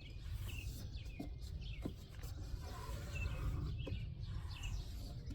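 Small birds chirping now and then, short high chirps over a steady low rumble, with a few faint clicks.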